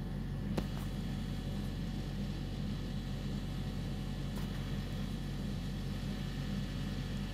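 Steady low hum with no speech, with a faint click about half a second in and another about four seconds in.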